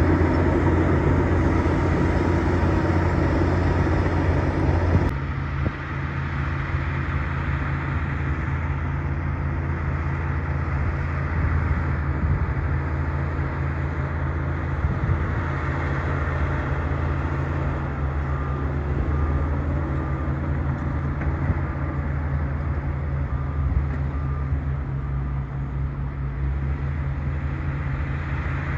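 Bulldozer's diesel engine running steadily. About five seconds in, the sound changes abruptly as its higher tones drop away and a lower drone carries on.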